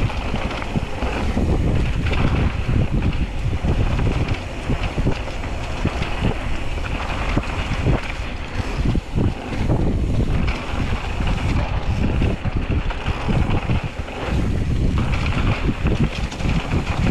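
Wind buffeting the microphone of a mountain bike riding fast down a dirt singletrack, with constant knocks and rattles as the bike runs over bumps in the trail.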